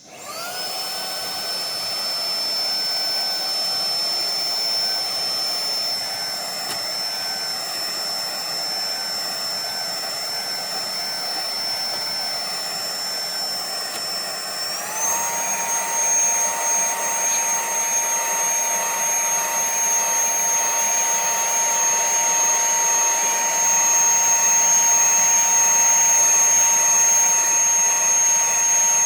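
Small handheld car vacuum cleaner's fan motor switching on and spinning up to a steady high-pitched whine, then stepping up to a higher speed about halfway through and running on louder.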